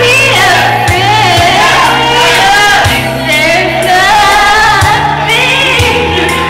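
A woman singing a pop ballad into a handheld microphone over an instrumental backing track, her voice gliding between sustained high notes above a steady bass line.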